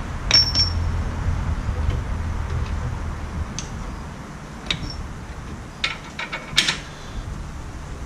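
Scattered sharp metallic clicks and taps of a pry tool working at a car's rear wheel speed sensor, one with a brief high ring about a third of a second in and a quick run of clicks near the end. A low hum underneath stops about halfway through.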